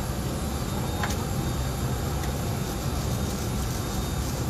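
Steady low rumble of a jet's cabin noise, with a faint click about a second in.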